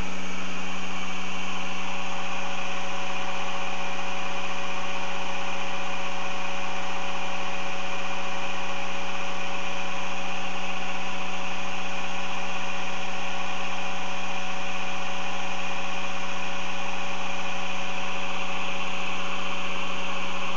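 Steady electrical hum: one strong low tone with many overtones above it, unchanging in pitch and level.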